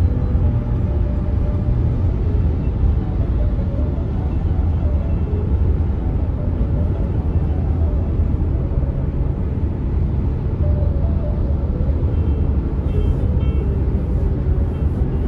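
Steady low rumble of road and tyre noise inside a car driving on a highway, with faint music over it.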